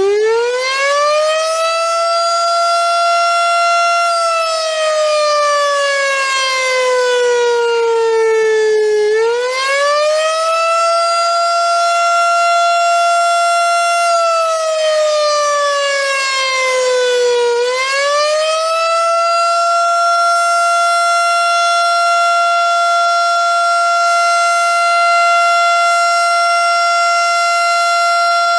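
Federal Signal STH-10 outdoor warning siren sounding during a test. It is still rising in pitch as it spins up at the start, holds a high tone, then twice slides slowly down and climbs back up, around ten and eighteen seconds in, before holding a steady high tone.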